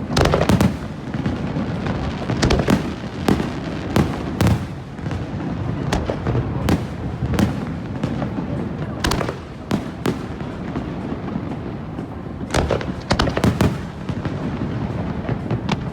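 Aerial fireworks going off: a run of sharp bangs and crackles, clustered in rapid volleys, over a continuous rumble of echoing booms.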